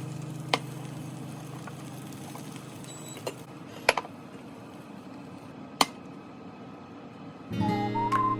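A few sharp, isolated clicks and clinks of kitchen utensils and dishes, over the fading tail of background guitar music. The music returns with a whistled melody near the end.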